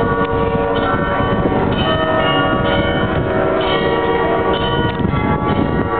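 The mechanical carillon of Munich's New Town Hall Glockenspiel playing a tune: many bell notes struck in turn, each ringing on and overlapping the next.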